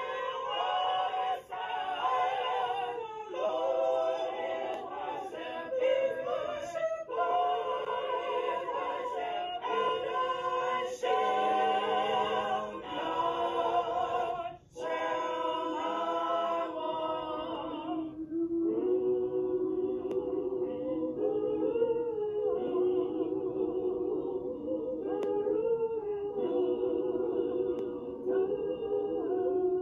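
Choir of mixed men's and women's voices singing. About eighteen seconds in, the brighter upper part falls away and the singing carries on in a lower register.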